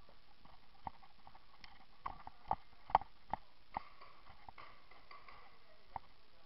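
A string of sharp, short knocks at uneven spacing, several of them close together between about two and four seconds in, the loudest about three seconds in, over a low steady background.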